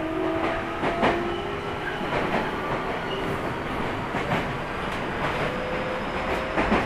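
Keio 1000 series electric train heard from inside the car: the whine of its Toyo GTO-thyristor VVVF inverter, several tones slowly rising in pitch as the train gains speed, over wheel and track rumble. Wheels click over rail joints every second or two.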